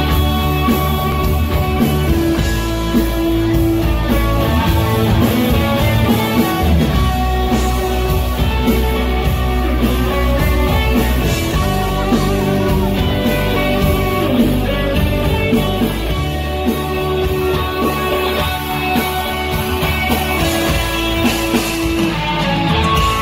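Rock band playing live, an instrumental passage of guitars over bass and drums, with no singing.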